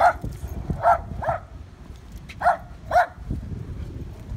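A dog barking: five short, sharp barks, the last four in two close pairs.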